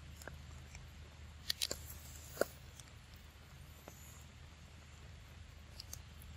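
Macaque biting and chewing a firm green fruit: a few short sharp crunches, the loudest about one and a half and two and a half seconds in, over a steady low hum.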